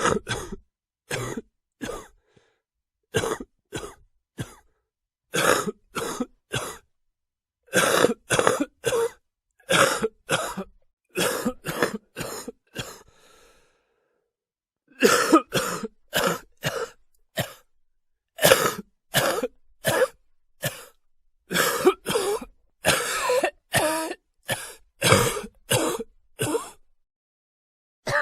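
A person coughing and clearing the throat to bring up phlegm, over and over: short coughs singly and in runs of two to four, with brief silent gaps between them. The runs come closer together in the second half.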